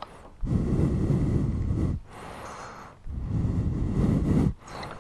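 A person's breathing blowing onto a close microphone: two long exhales heard as low rumbles of about a second and a half each, with a softer, hissier inhale between.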